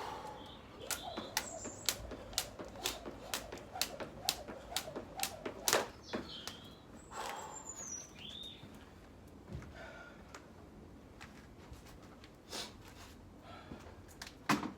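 A skipping rope slapping the ground in a quick, even rhythm of about three strikes a second, breaking off about six seconds in to a few scattered clicks. Birds chirp now and then.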